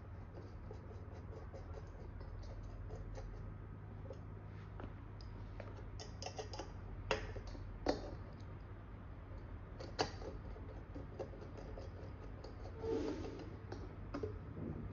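Small screws being worked on a drone motor's propeller mount with a precision screwdriver and pliers: faint rapid ticking of metal tool on screw, with a few sharper clicks about halfway through and near the two-thirds mark.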